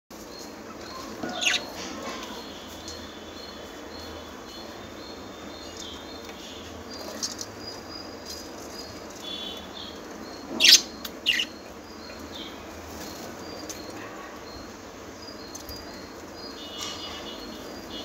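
Pet budgerigars chirping and warbling: sharp chirps about a second and a half in and twice around the middle, with soft high warbling between, over a steady background hiss.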